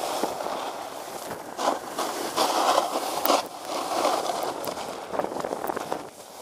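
Edges sliding and scraping over packed snow on a ski slope, a hiss that swells and fades about three times as turns are carved, with a few small ticks.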